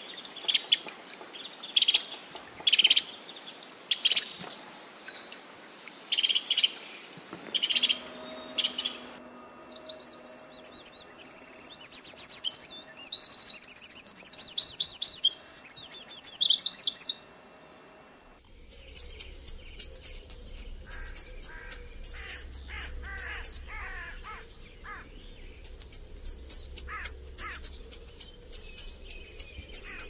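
Birds singing in three passages. First come short chirps repeated every half second or so. Then there is a continuous rapid warbling song for about seven seconds. After a brief gap come runs of high, quickly repeated whistles that sweep downward.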